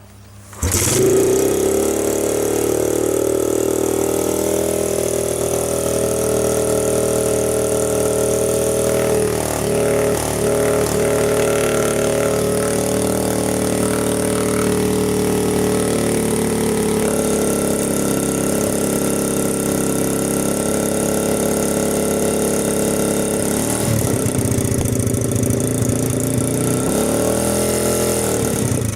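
Dirt bike engine starting under a second in and then running steadily at idle, revved up and down a few times near the end.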